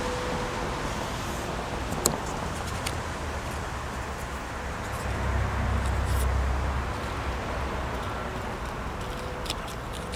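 Wind buffeting the microphone: a steady rush with a low rumble that swells about five seconds in. A couple of light clicks come as the vinyl decal and its transfer tape are handled.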